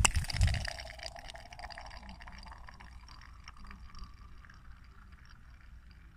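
A slab of ice thrown onto a frozen lake lands with a sharp hit and skids away across the ice with a rapid patter of ticks. The ice sheet rings with a high tone that slowly rises in pitch as it fades away.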